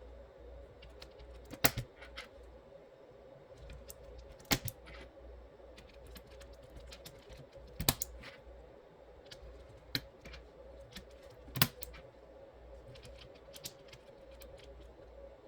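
Irregular plastic clicks and light ticks from handling an aigo A108 mechanical keyboard's switches during a switch swap, with a sharper click every few seconds, over a faint steady hum.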